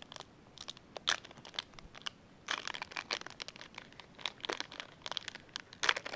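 Trading card pack wrapper crinkling and tearing as a pack is opened: a run of sharp crackles, denser about two and a half seconds in and again near the end.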